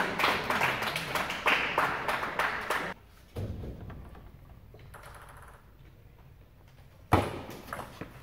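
Table tennis ball clicking: quick bounces while the server gets ready, a quiet stretch, then a sharp hit about seven seconds in as the serve starts a rally, with quick clicks of ball on bat and table.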